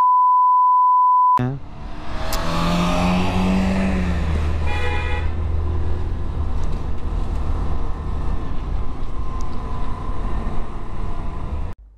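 A steady censor bleep for about a second and a half, then a scooter riding along: engine running and wind rushing over the camera, with a short high tone about five seconds in.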